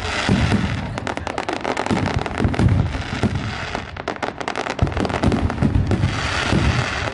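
Fireworks and firecrackers going off in a dense barrage: many overlapping bangs and crackles with no break between them.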